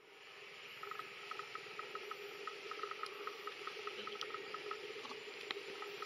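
Outdoor ambience of insects: a fast, even ticking, several ticks a second, over a steady hiss and a steady drone.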